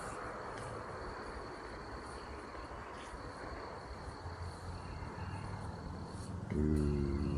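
Crickets trilling steadily, one high unbroken tone. About six and a half seconds in, a louder low droning hum made of several pitches sets in.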